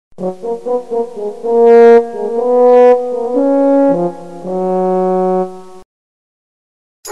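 Background music: a short brass phrase of quick short notes followed by a few long held notes, stopping about six seconds in.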